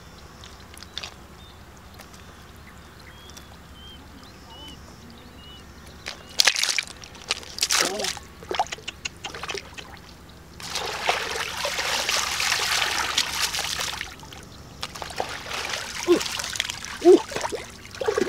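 Water splashing and sloshing as a plastic mesh basket of mud is dipped and shaken in shallow water, washing the mud out through the holes. After about six quiet seconds come scattered splashes, then a steady rush of sloshing water for about three seconds, then more splashes near the end.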